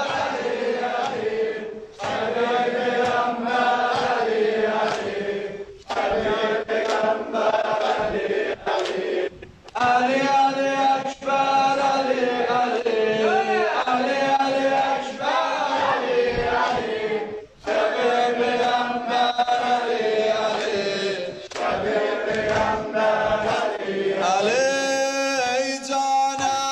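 A group of men chanting a Shia Muharram lament (noha) together, phrase by phrase with short breaks, with sharp slaps of chest-beating (matem) among the voices. Near the end the chant turns to long held notes.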